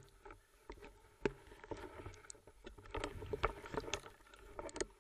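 Irregular clicks, knocks and scrapes picked up underwater as a spearfisher forces his way through dense reed stems.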